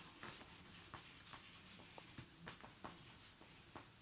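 Faint scratching of a pencil writing on paper, in short irregular strokes.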